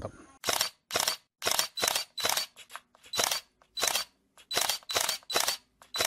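Camera shutter clicks repeated about twice a second, roughly a dozen in all.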